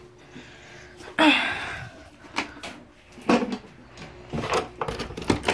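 A rustle, then a few scattered knocks and bumps of things being handled in a small closet.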